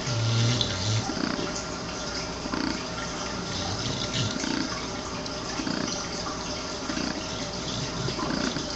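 English bulldog sucking on a plush toy: wet slurping and suckling sounds with snuffling breaths, repeating irregularly. A low grunt in the first second.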